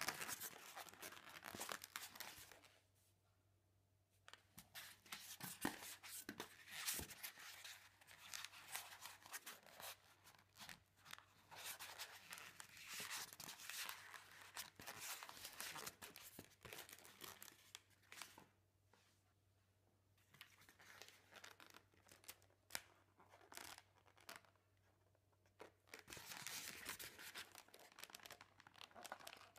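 Latex modelling balloons rubbing and squeaking against each other and the hands as they are twisted and handled, in irregular bursts with a few pauses.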